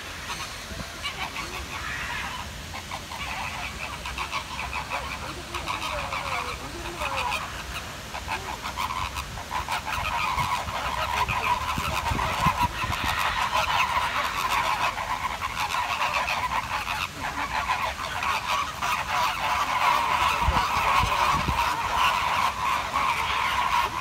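A flock of American flamingos honking and gabbling together in a continuous goose-like chorus, growing louder about halfway through.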